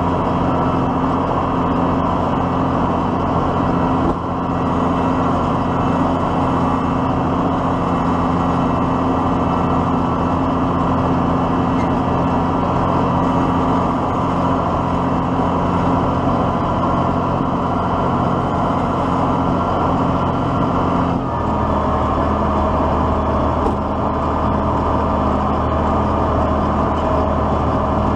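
Diesel tractor engine running steadily under the machine's work, its note changing about 21 seconds in.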